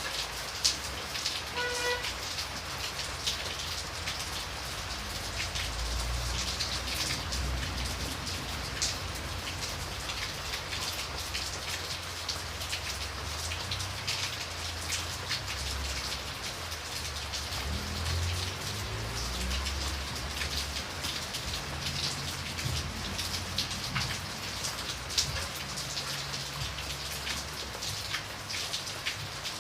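Steady rain, with many separate drops standing out as sharp ticks over the constant hiss of the downpour.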